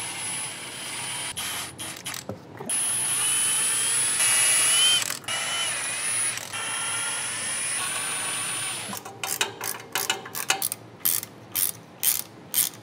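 Cordless electric ratchet whirring in short runs as it loosens the transmission pan bolts. From about nine seconds in, a quick string of ratchet clicks follows as a wrench is worked by hand.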